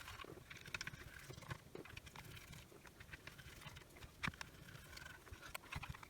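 Faint, scattered small clicks and taps of a T9 Torx screwdriver working out the screws around the edge of a flashlight housing, the sharpest click about four seconds in.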